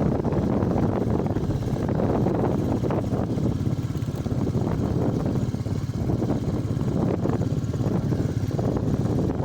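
Royal Enfield Meteor 350's single-cylinder engine running as the motorcycle is ridden, mixed with steady wind and road rumble.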